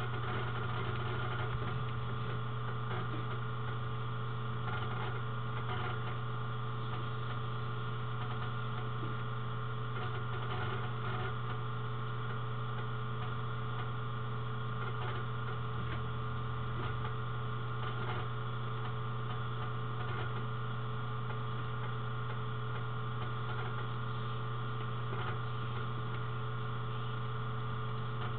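Steady low electrical hum with a constant hiss above it, unchanging throughout.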